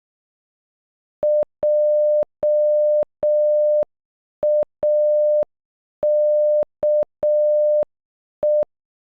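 Morse code audio playback: a steady mid-pitched beep keyed on and off, spelling J-A-K-E (dot-dash-dash-dash, dot-dash, dash-dot-dash, dot) at half speed. Each beep starts and stops with a faint click.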